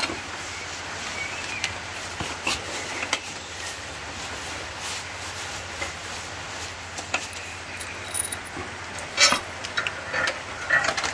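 Scattered light metal clicks and clinks as a hex driver works a bolt on a steel motorcycle luggage-rack bracket and the rack tube is handled, with one sharper clink about nine seconds in and a few more near the end.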